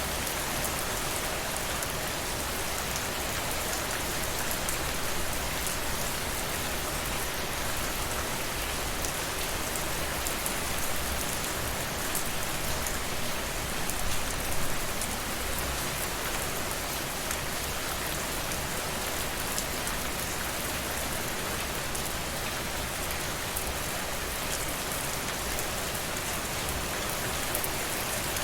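Steady rainfall, a dense hiss of drops with fine individual drop ticks, swelling slightly twice.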